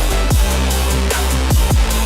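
Bass-boosted electronic music with a constant deep sub-bass and kick drums about every two-thirds of a second, each a quick downward-sweeping boom.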